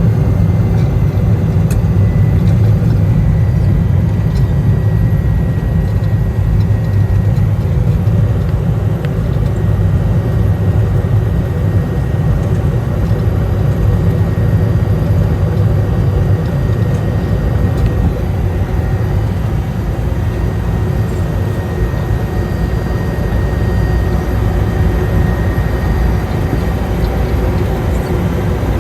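Cessna 208 Caravan's single Pratt & Whitney PT6A turboprop engine running steadily, a deep drone with a faint high whine over it.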